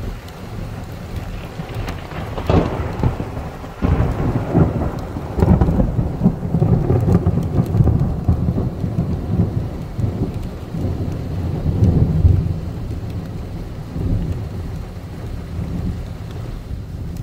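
Steady rain with a long roll of thunder that builds a couple of seconds in, is loudest in the middle, and dies away near the end.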